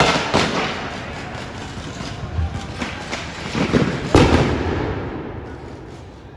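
A series of loud explosive bangs, the loudest about four seconds in, with noisy din between them that fades away near the end.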